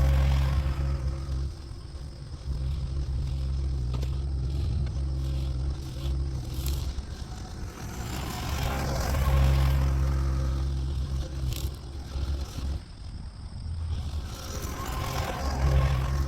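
Diesel engine of a Toro TX1000 mini skid steer running under load while its Virnig V20 brush mower cuts brush, with scraping and rustling from the cutting. The engine's sound swells and drops back every few seconds.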